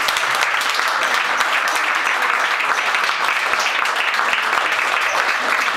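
A small audience applauding: many hands clapping together in a steady stream.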